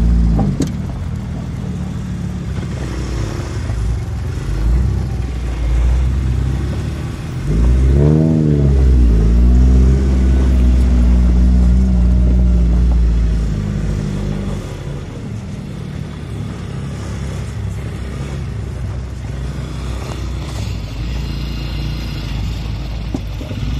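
Small ATV (quad bike) engines running along a dirt trail, with a rev that rises and falls in pitch about eight seconds in and the engine staying louder for several seconds after before settling back to steady running.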